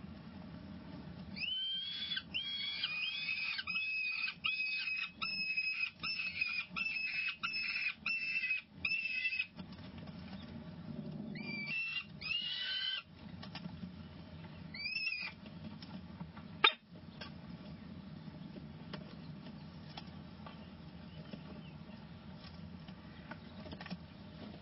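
Peregrine falcon chicks begging at a feeding, a rapid series of high cries about two a second for some eight seconds, then a few more calls. A single sharp click comes about two-thirds of the way in, over a steady low hum.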